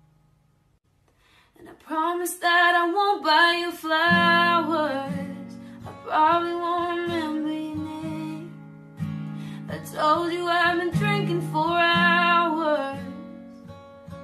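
A woman singing to her own guitar, in long sung phrases. It is almost quiet for the first second and a half; the guitar's low chord notes come in firmly about four seconds in.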